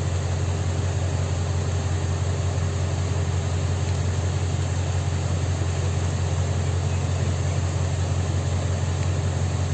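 An engine idling steadily with an even, low hum.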